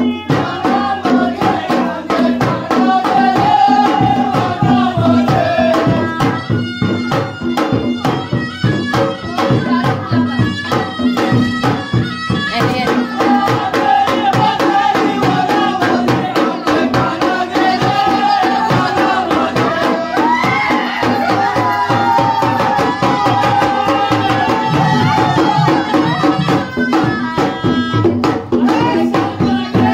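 Traditional folk festival music: fast, dense drumming under a sung melody that runs throughout.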